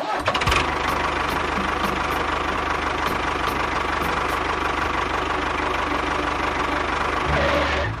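Tractor engine starting about half a second in, then running steadily with a low, even chugging.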